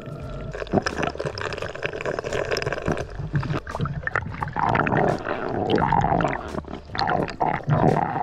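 Underwater audio: water gurgling and bubbling, with scattered irregular clicks and crackles.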